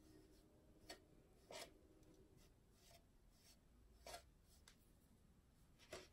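Faint brush strokes of chalk paint being applied to a glass bowl: four short, soft swishes a second or two apart.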